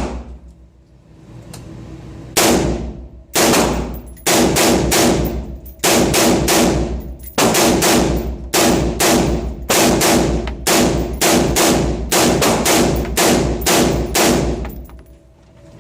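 A gun fired rapidly at a shooting range: a string of about two dozen shots, two to three a second, each with a short echo. The shots start about two seconds in and stop shortly before the end.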